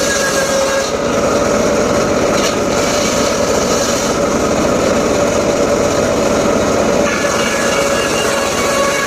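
Homemade circular saw running steadily through mahogany, a loud, even whine over dense machine noise.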